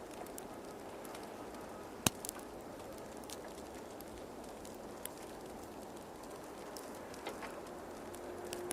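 Faint, steady hiss of an outdoor snowstorm, with scattered sharp ticks and one louder click about two seconds in.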